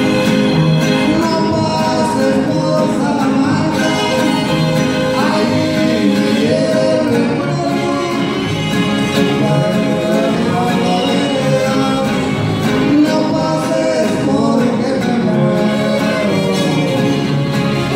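Live conjunto de arpa music: fiddle, arpa grande, a small strummed guitar and a guitar playing together, with voices singing.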